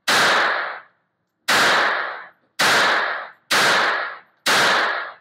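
Five shots from a Beretta 950 Minx .22 Short pistol, fired about one a second, each a sharp crack with a short echo off the walls of an indoor range booth.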